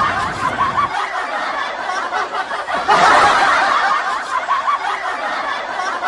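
Laughter running on and on, swelling louder about three seconds in.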